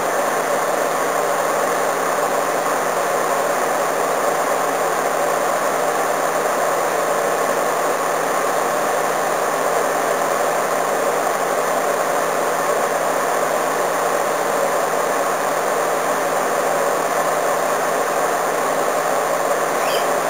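Small air conditioner running on high, a steady even whoosh of fan and compressor with no change, working at the limit of its capacity under a heavy heat load.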